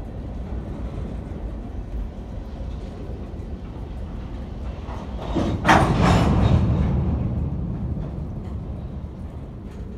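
Freight cars rolling past close by, their steel wheels rumbling steadily on the rails. About halfway through a louder, sharper burst of noise rises over the rumble and fades over the next couple of seconds.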